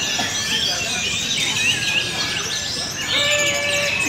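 Many caged orange-headed thrushes singing at once: a dense, unbroken tangle of overlapping whistles, trills and chatter.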